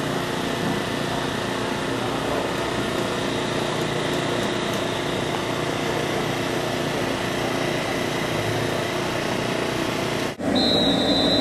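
Many racing kart engines running together on the starting grid, a steady drone. About ten seconds in the sound cuts off sharply and comes back louder, with a brief high steady tone near the end.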